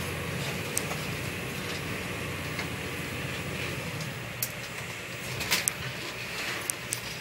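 Pilot boat's engines running steadily under heavy sea noise, with sharp knocks and rattles through the second half. A rush of spray comes over the bow about five and a half seconds in.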